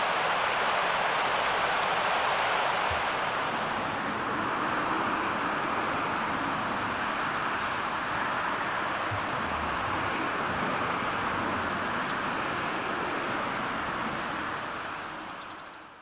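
Steady rushing of a shallow stream flowing over rocks, fading out near the end.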